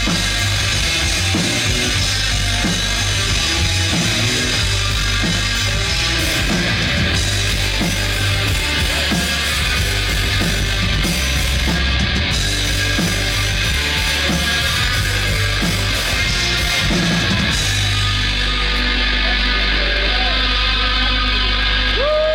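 Loud heavy rock music with a drum kit and guitars playing; near the end the drums drop out, leaving a held low chord ringing.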